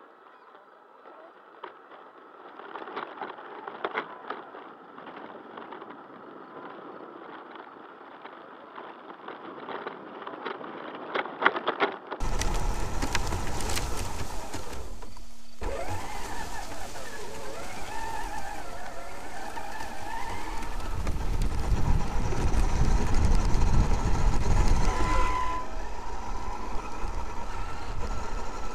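Radio-controlled Traxxas X-Maxx monster truck driving over gravel and through grass. For the first twelve seconds it is heard from a following RC car: a faint noisy haze with scattered clicks. Then, from its own onboard camera, the sound is much louder: the electric drive motor whines, rising and falling in pitch, over a heavy low rumble.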